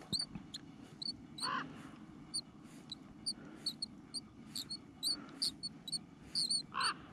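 Spinning reel's handle squeaking in short high chirps, two or three a second, as the reel is cranked slowly; the reel is dry, and the angler thinks it wants WD-40. Two louder, lower squawks come about a second and a half in and near the end.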